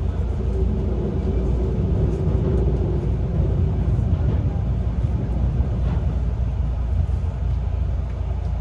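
Electric train running: a steady low rumble, with a faint steady hum for the first few seconds.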